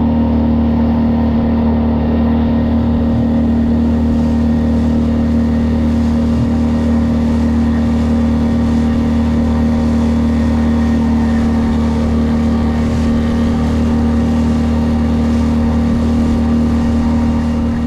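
Small inflatable boat's outboard motor running steadily under way, holding one even pitch.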